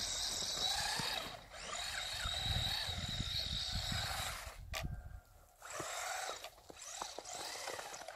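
Electric RC car's motor whining, its pitch rising and falling as the throttle is worked, cutting out briefly twice as it drives through snow.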